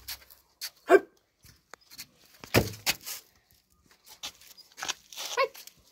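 Scattered knocks, scuffs and rattles from a tethered puppy moving about on its cord, with the loudest knock a little past two and a half seconds. Short voice-like sounds come about a second in and near the end.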